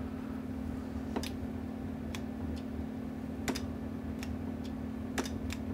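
The Texas Star DX500 CB amplifier's keying relay clicking in and out at irregular intervals, about eight sharp clicks, while its sideband delay (relay hang time) is tested. A steady low hum runs underneath.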